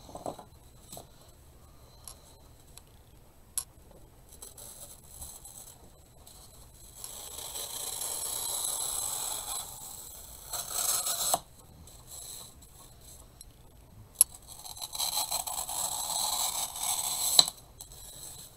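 Block of dry floral foam scraping as it is pushed and slid by hand: two longer stretches of rough scraping hiss, with a few sharp clicks between them.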